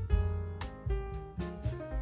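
Background music: an instrumental track with piano-like notes, a bass line and a steady drum beat.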